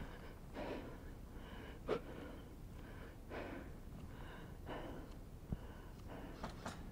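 Faint, steady breathing close to the microphone, one breath about every second and a half, with a few short sharp clicks in between.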